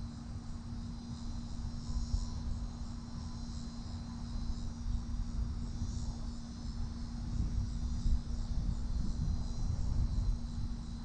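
Insects chirring steadily in a high, continuous band, over a low, uneven rumble and a faint steady hum.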